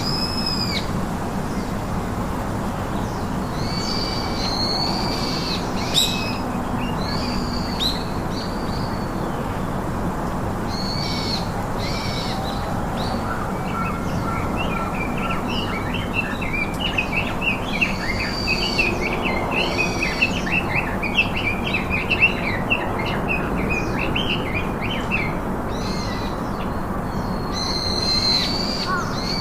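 Birds calling over a steady background hiss: repeated short, high, arching calls throughout, with a dense stretch of rapid chattering in the middle.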